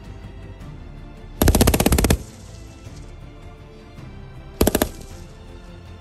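Belt-fed light machine gun firing two bursts: a rapid burst of about a dozen shots lasting under a second, then a brief burst of a few shots a few seconds later, over faint background music.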